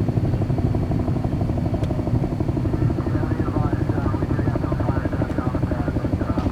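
Antares rocket's first stage, with its two Russian RD-181 engines, heard in flight after liftoff: a loud, dense low rumble with a fast rattling crackle.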